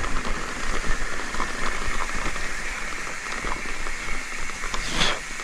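Mountain bike rolling over a grassy dirt track: a continuous crackling rattle of tyres on grass and a shaking frame, with a sharp clack about five seconds in.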